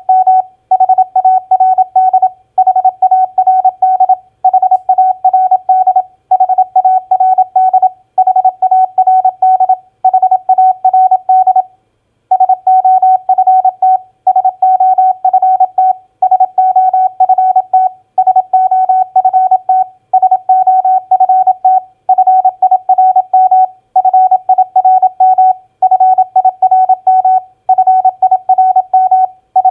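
Morse code sent at 27 words per minute as a single pure beep tone, keyed into quick dots and dashes that spell common four-letter words, one word about every two seconds with a short pause between words.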